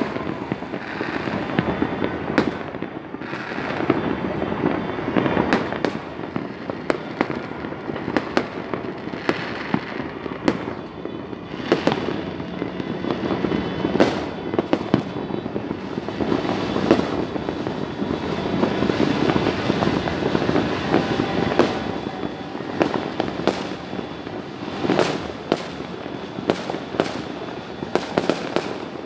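Many fireworks and firecrackers going off at once across a city: a dense, unbroken crackle and rumble of overlapping bangs, with sharper single cracks standing out, more of them in the last few seconds.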